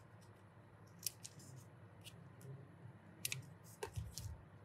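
Scissors snipping paper in a few short, sharp clicks, then a soft knock near the end as the scissors are laid down on the table.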